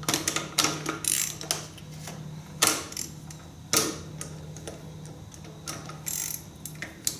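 Hand ratchet wrench with a 9/16 socket being worked on a bolt: the pawl clicks in irregular runs, with a few sharper knocks as each stroke is pulled.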